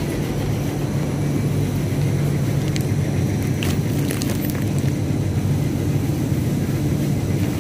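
Steady low hum of supermarket refrigerated freezer cases, with a few light clicks about three to four seconds in.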